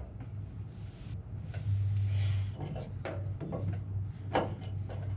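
Low steady hum of a small fuel transfer pump running while it pulls little or nothing from a nearly dry tank, with a few knocks and rubbing from handling the hose and pump.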